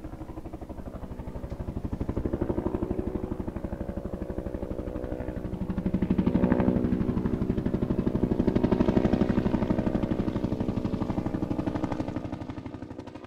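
A motor running with a rapid, even throb that swells louder and fades twice, then dies away near the end.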